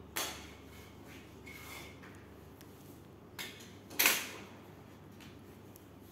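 A few short scrapes and clicks of a utility knife and vinyl flooring being worked by hand on the floor. Two sharper scrapes come just after the start and about four seconds in, the second the loudest.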